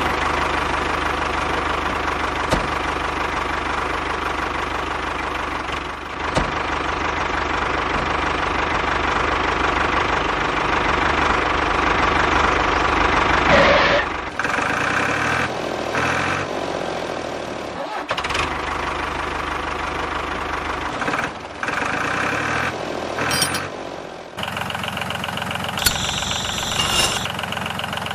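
Engine-like running sound, steady and continuous, changing character several times.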